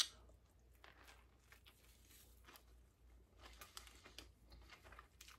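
Faint eating noises from a sandwich: scattered soft clicks and crinkles of chewing and handling the bread and wrapper, a little louder about four seconds in.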